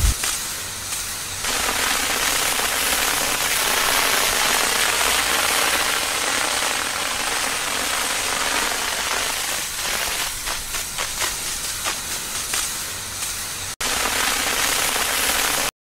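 Water spraying from a toy fire truck's nozzle onto smouldering burnt paper: a steady hiss, with scattered crackles from about ten seconds in.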